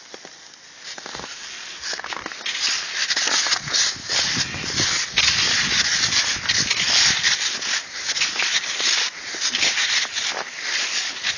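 Snow crunching and hissing with steady movement along a trail, an irregular rustling noise that grows louder about two seconds in.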